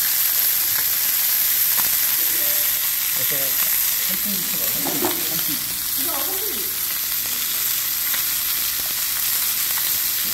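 Chunks of black-pork neck sizzling steadily as they fry in a hot nonstick pan.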